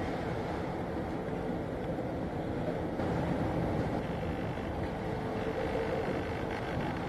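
Steady low rumble with wind buffeting the microphone, under a faint, even drone from the passing general cargo ship.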